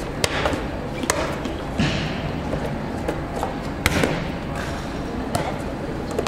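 Volleyballs being struck and bouncing on the hard court floors: scattered sharp smacks at irregular intervals, the loudest about four seconds in, over the steady din of a large hall with several courts in use.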